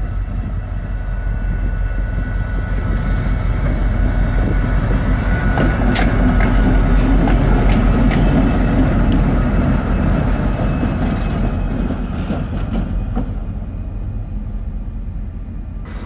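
Rail Polska M62-type (ST44) diesel locomotive passing at close range. Its steady low engine rumble grows to a peak about halfway through and then fades as freight wagons follow, with a few sharp wheel clicks.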